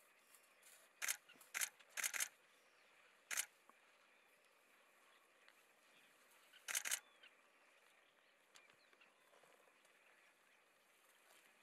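A handful of short, sharp clicking bursts, three or four between about one and three and a half seconds in and a double one near seven seconds, over a faint, steady outdoor background.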